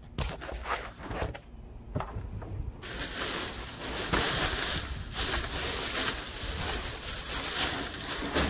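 Plastic trash bags rustling and crinkling in a dumpster, starting abruptly about three seconds in after a few scattered clicks.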